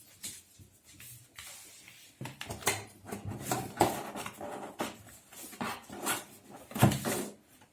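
A pet dog's noises close by, mixed with scattered clicks and knocks of plastic vacuum-cleaner parts being handled during unboxing.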